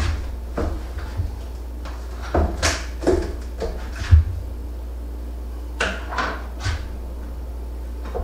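Scattered knocks and clicks of objects being handled on a workbench, in loose clusters with the loudest knock about four seconds in, over a steady low hum.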